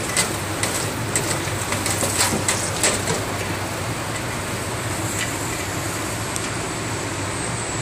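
Hot oil sizzling in a deep fryer basket, with sharp crackling pops, most of them in the first three seconds, over a steady low hum.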